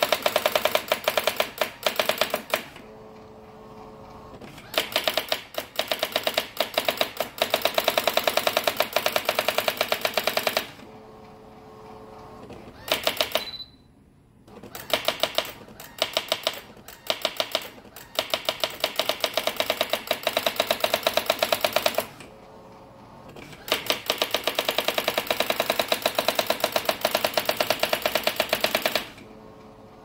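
Brother AX-350 electronic daisywheel typewriter printing automatically: rapid, evenly paced runs of daisywheel strikes. The runs break into pauses of about two seconds at each line's end, each with a steady hum as the carriage moves. A short high beep sounds once around the middle.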